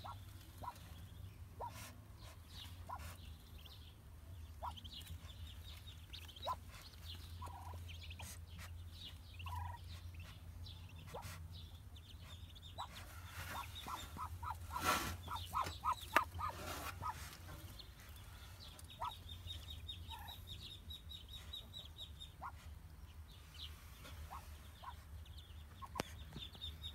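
Newly hatched Muscovy ducklings peeping softly in the nest, scattered short high calls, with a busier flurry of rapid peeps about halfway through.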